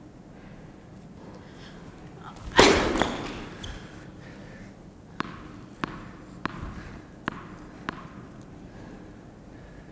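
Tennis serve struck hard, one loud crack with a short echo in a large indoor court, followed a couple of seconds later by a tennis ball bounced five times on the hard court at an even pace, about one and a half bounces a second.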